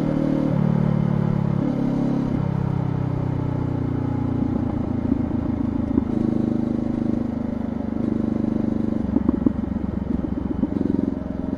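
Honda CBR500R's parallel-twin engine through a LeoVince GP Corsa exhaust with no dB killer, heard from the rider's seat while slowing. The engine note steps down, up and down again in the first few seconds as gears change. It then runs at low revs on the overrun, with scattered crackles and rattles.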